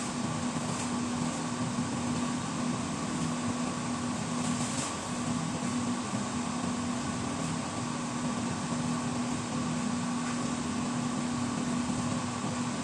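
A steady mechanical hum with a constant low tone over an even whirring noise, holding level without change.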